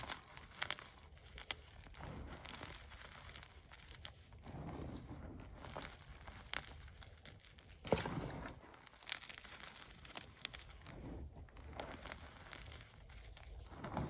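Hands squeezing, crushing and raking a heap of crumbled gym chalk blocks: soft crunching and crumbling with sharp little cracks, coming in swells every second or two, the loudest about eight seconds in.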